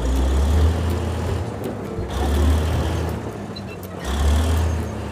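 Background music with a deep bass note pulsing about every two seconds, over a steady rushing noise.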